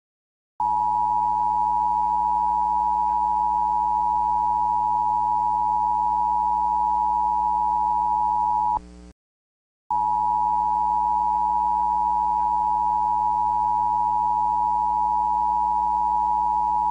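A steady electronic alert tone with a strong pitch near 1 kHz and fainter lower tones under it. It sounds for about eight seconds, breaks off, then starts again a second later.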